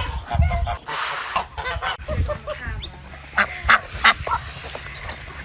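Geese honking, a run of calls in the first two seconds and three short sharp honks later, with a brief rustle about a second in.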